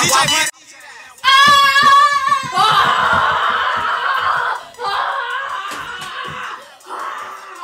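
A young person's long, high-pitched shriek with a wavering pitch starting about a second in, followed by rougher, noisier screaming that comes and goes and fades near the end.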